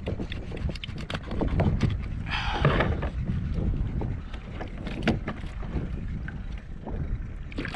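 Low wind rumble on the microphone and water against a kayak hull, with many small knocks and clicks from handling gear on the kayak. There is a short rustling hiss about two and a half seconds in.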